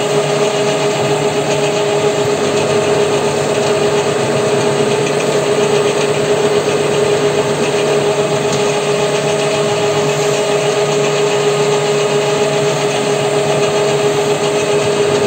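WM210V bench lathe running under leadscrew power feed, a steady machine whine with a constant pitch. Its carriage drives the cutter along a half-shaft to cut spline grooves.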